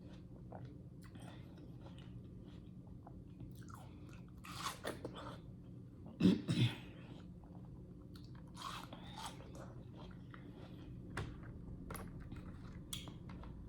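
Close-miked chewing and biting of juicy yellow watermelon: irregular wet smacks and crunches, with a few louder clusters of bites spread through.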